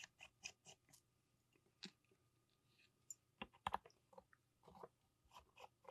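Faint small clicks and ticks of a precision screwdriver working the screws around a camera's viewfinder: a quick run of about four clicks a second at first, then scattered clicks with a short cluster midway.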